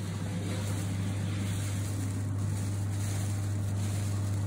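Aluminium foil crinkling and rustling as it is folded and crimped around a roast pork knuckle. Under it runs a steady low machine hum.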